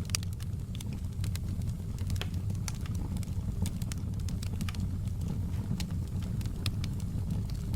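Fire crackling in a fireplace: irregular sharp pops and snaps, several a second, over a steady low rumble of the flames.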